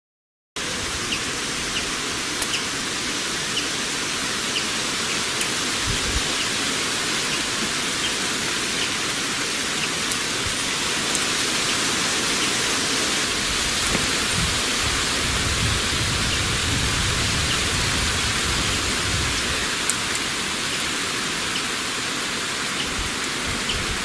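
A steady, even hiss like heavy rain or rushing water, starting abruptly about half a second in, with a few faint clicks over it.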